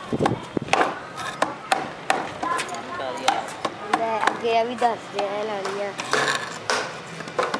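Hammer striking a wooden box: a run of sharp knocks, a few a second, unevenly spaced.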